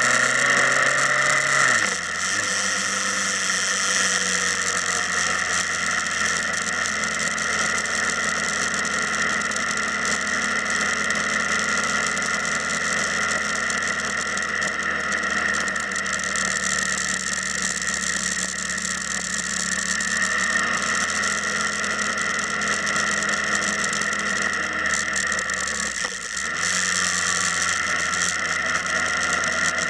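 Motorcycle engine running steadily; its note drops about two seconds in, and near the end it dips briefly and then picks up again.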